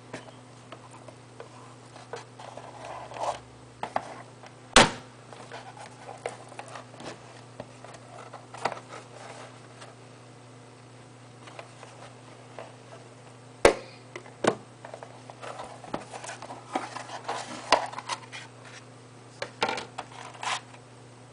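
Cardboard retail box being handled and opened on a table: scattered rustling scrapes and sharp knocks, the loudest about five seconds in and twice around fourteen seconds, over a steady low hum.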